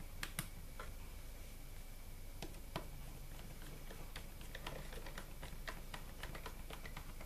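Small irregular clicks and ticks of a screwdriver driving the last screw into a laptop's plastic underside, coming faster in the last few seconds.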